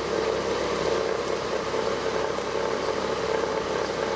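Electric fan running steadily: a constant whirring hum that does not change.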